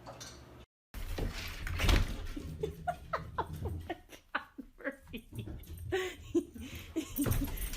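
A dog whining in a run of short, high cries that each fall in pitch, repeated quickly over and over.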